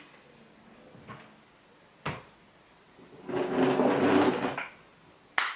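A drawer being handled: a knock, then a scraping slide lasting about a second, then a sharp knock as it shuts.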